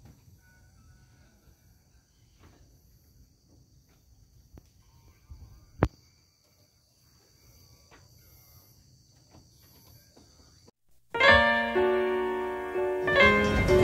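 Faint outdoor ambience with a steady high insect chirring and a sharp click about six seconds in. About eleven seconds in, the ambience cuts off and loud background music with piano-like notes begins.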